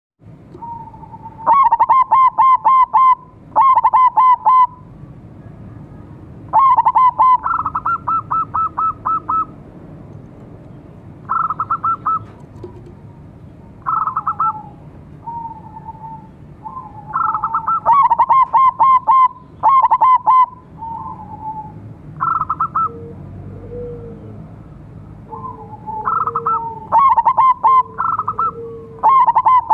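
Zebra doves (perkutut), one a silver-coloured bird, cooing against each other: loud phrases of rapid staccato coos come every few seconds, answered by phrases at a slightly different pitch. Softer, lower coos run through the later part.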